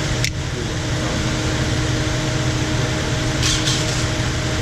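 Steady whir and hum of a running shop fan. A sharp click comes just after the start, and a couple of light metallic clinks come about three and a half seconds in.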